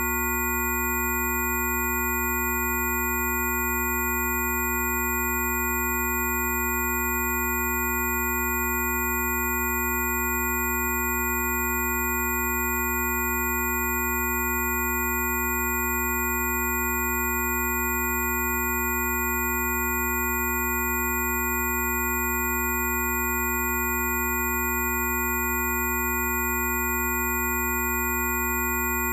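A steady electronic drone: several pure tones held at fixed pitches over a deep hum, with no change in pitch or level.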